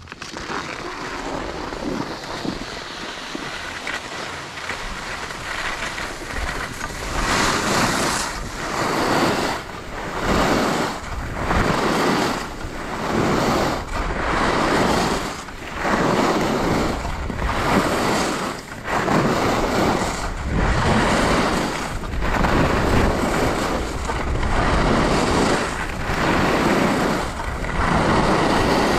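Skis sliding and carving on groomed snow with wind rushing over the microphone: a steady hiss builds over the first few seconds, then swells and dips about once a second, one scrape per turn.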